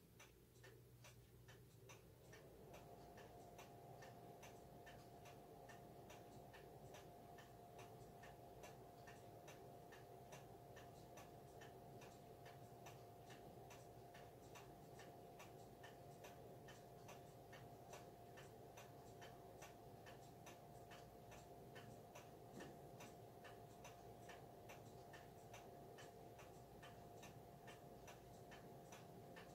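Faint, steady, even ticking of an antique E. Ingraham 8-day pendulum wall clock's escapement as the clock runs. A faint steady tone comes in about two seconds in under the ticking.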